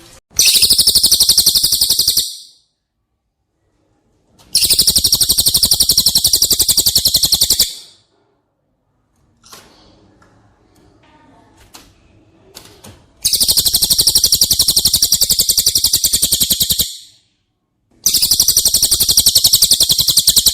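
Recorded songbird trills from a cililin and tengkek buto masteran track: four long bursts of very rapid, high-pitched repeated notes, with short gaps between them.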